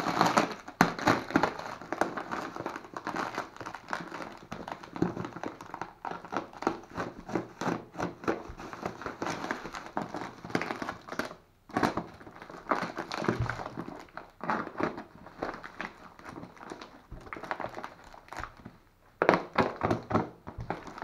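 Bubble wrap and plastic film crinkling and rustling as hands pull and twist it off a boxed part, in irregular bursts with a couple of short pauses, loudest at the start and near the end.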